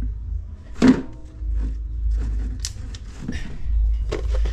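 A glass electric kettle handled and switched on: a sharp knock about a second in with a brief faint ringing after it, over a low rumble of handling noise on the microphone.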